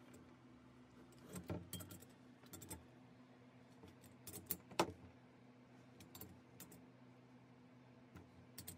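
Light metallic clinks and rattles of a socket and extension on a beam-type torque wrench as it is fitted onto and turned on rocker box bolts of a shovelhead cylinder head. They come in a few short clusters, with the sharpest knock just before the middle. A faint steady hum runs underneath.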